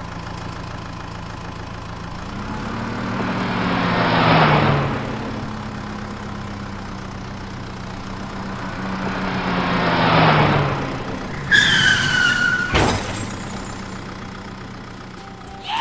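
Cartoon vehicle engine sound effects: a steady engine hum with two vehicles driving past, each growing louder and then dropping in pitch as it goes by, about four and ten seconds in. Near the end comes a short whistle-like tone that slides down, then a sharp click.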